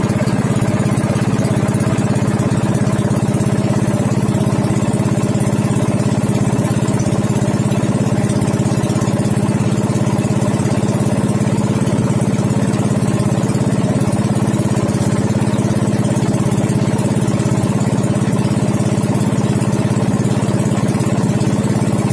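Engine of a motorized outrigger boat (bangka) running steadily at a constant speed while under way.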